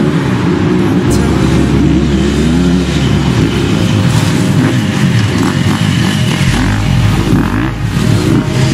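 A pack of enduro dirt bikes accelerating hard, many engines revving up and down over one another as bike after bike passes close by.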